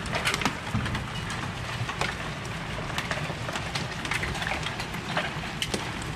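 Hail and rain falling in a steady hiss, with many scattered sharp ticks of hailstones striking a wooden deck.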